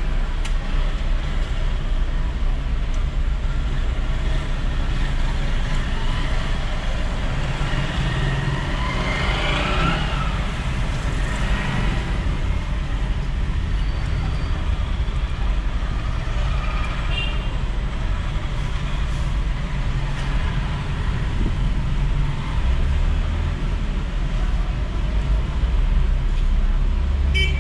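Steady low rumble of a car's engine and road noise heard from inside the cabin while driving slowly in street traffic. About ten seconds in, a brief rising and falling pitched sound rises above it.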